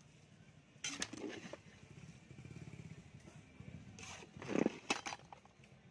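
Fish pieces being stirred into a wet spice paste in a large metal pot, with a spoon clinking and scraping against the pot in two short bursts, about a second in and around four and a half seconds in.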